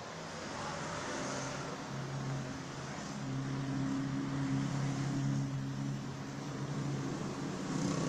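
A motor vehicle's engine running with a steady low hum, growing louder about two seconds in, easing a little around six seconds and picking up again near the end.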